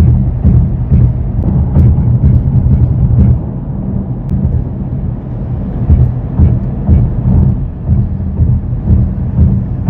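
Low vibration drone and irregular low thumps inside a 2024 Mercedes-AMG GLE63 S cabin at highway speed, over road noise. This is the unexplained vibration noise from the dash area.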